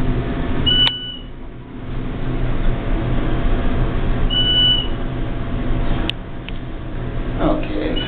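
Traction elevator car travelling up with a steady hum and rumble of the ride. A short, high electronic beep sounds as the car passes each floor, twice about three and a half seconds apart. There is a sharp click about six seconds in.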